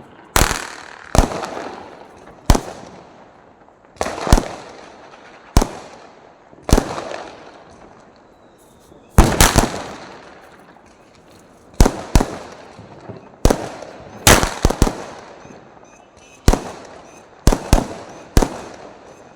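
Firecrackers bursting in a string of sharp bangs, one every second or two and some in quick pairs, each trailing off in an echo.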